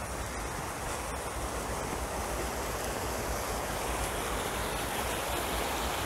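Steady rushing noise of wind and sea surf, even throughout, with no distinct events.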